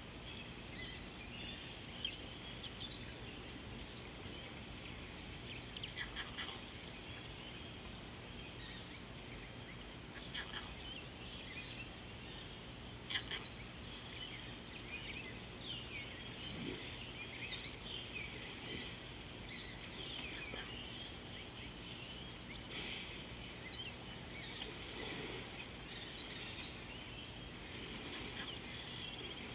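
Many wild birds calling and chirping at once in a continuous chorus, over a faint steady low hum. A couple of brief sharp ticks stand out, about two seconds in and again near the middle.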